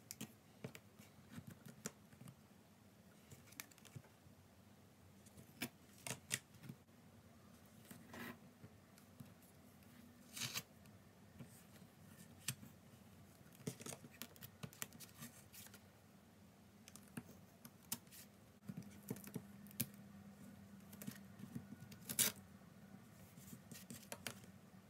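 Handling of washi tape on planner paper: scattered light taps, scratches and rustles as the tape is unrolled, torn and pressed down along the page.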